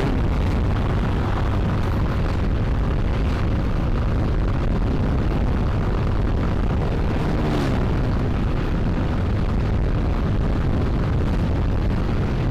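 Wind buffeting a helmet-mounted camera microphone on a moving scooter: a loud, steady low rumble with engine and road noise beneath. A faint engine note rises and falls about seven seconds in.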